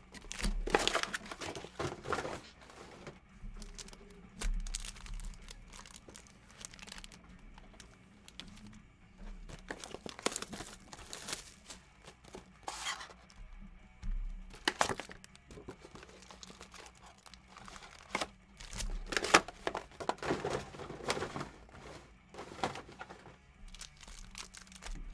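Sealed trading-card boxes being torn open and their foil card packs handled and stacked: irregular bursts of tearing, crinkling and rustling wrapper.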